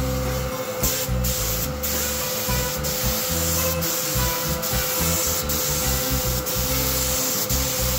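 Gravity-feed paint spray gun hissing as it lays epoxy primer onto a bare-steel car door. The hiss cuts out briefly about once a second between passes.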